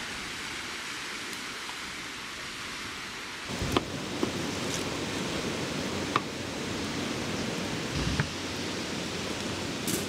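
Steady rushing noise of wind and lake waves on the shore. About three and a half seconds in, closer sounds take over: a few sharp clicks of a knife slicing through sausages onto a wooden cutting board.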